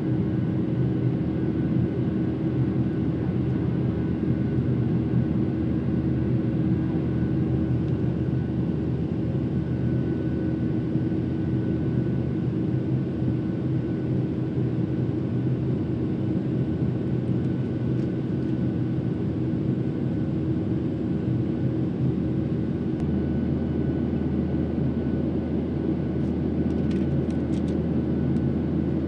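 Cabin noise of a Boeing 737-700 in its climb after takeoff: the steady drone of its CFM56-7B turbofan engines and the rushing air, with a steady hum running through it. About 23 seconds in, the low rumble changes and settles into a steadier drone.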